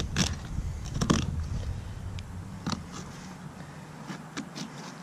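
Knife blade scraping and clicking against a redfish's backbone and rib bones as the fillet is cut free, a few sharp clicks spaced roughly a second apart and lighter ones near the end.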